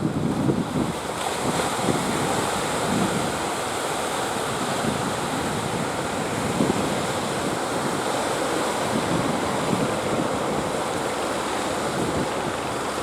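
Steady wash of ocean surf with strong wind buffeting the microphone, the gusts thumping hardest in the first second.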